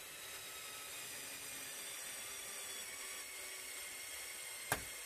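LEGO Technic crane's motor running steadily, whirring through its gear train as it extends the outriggers. A few sharp clicks come near the end.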